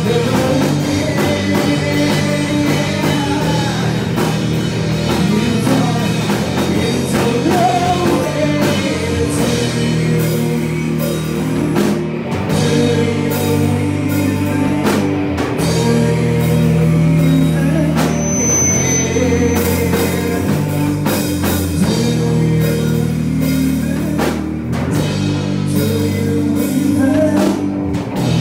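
Live rock band playing: distorted electric guitar, bass guitar and drum kit, with steady driving drums and no break.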